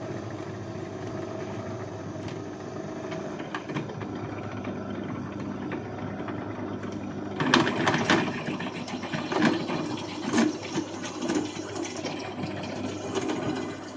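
Bench drill press running with a steady motor hum. About halfway through, the bit bites into the aluminium engine block and a louder, uneven grinding of the cut joins in as it drills out the old stripped head bolt threads.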